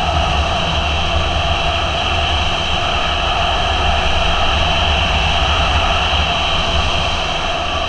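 Motorcycle cruising at steady speed: loud, steady wind rush over the camera microphone, with the engine running underneath.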